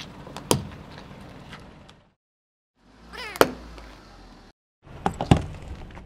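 Car tyre rolling over and crushing small plastic, jelly-filled objects, in three short clips with silent cuts between them. Each clip has sharp cracks and pops, loudest about half a second in, about three and a half seconds in, and about five seconds in; the middle one has a short squeal just before its crack.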